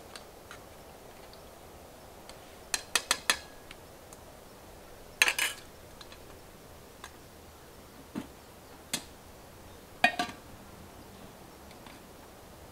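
Scattered sharp clinks and clatters of hard objects being handled: a run of four quick clicks about three seconds in, the loudest clatter a couple of seconds later, two single clicks, and another short clatter near the end.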